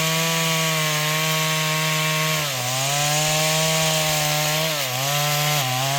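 Chainsaw running at full throttle, cutting into a mahogany tree. The engine pitch dips twice as it bogs under the load of the cut, then picks back up.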